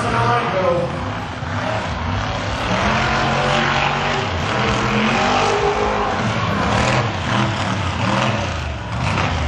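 Mega truck's big engine revving hard, its pitch rising and falling as the truck charges over the dirt course.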